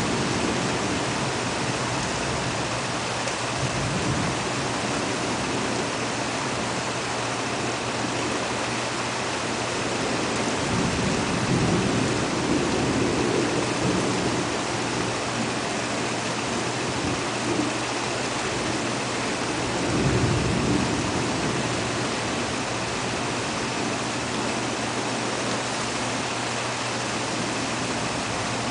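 Thunderstorm: steady rain falling, with a long roll of thunder about a third of the way in and a shorter, louder rumble of thunder about two-thirds through.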